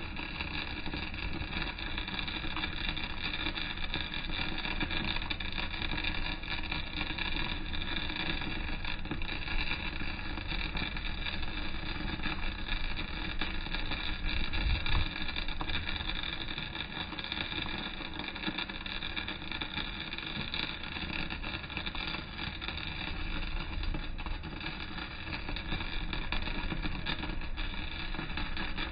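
Welding arc running continuously on a vertical-down (3G downhill) weld, a steady crackling hiss with a drone under it.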